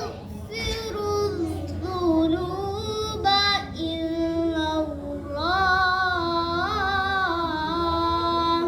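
A young girl chanting Qur'an verses in the melodic qira'ah style, in several ornamented phrases. From about halfway, she holds one long wavering note.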